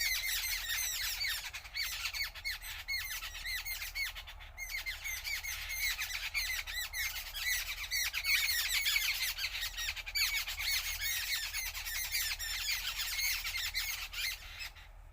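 A dense chorus of many small birds chirping loudly, their short calls overlapping without a break, easing off briefly just before the end.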